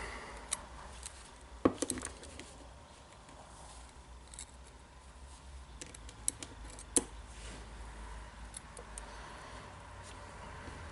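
Scattered light clicks and taps of small metal gear parts being handled and fitted as the Makita DDF484 drill's gear assembly is put back together, the sharpest clicks about two seconds in and again about seven seconds in.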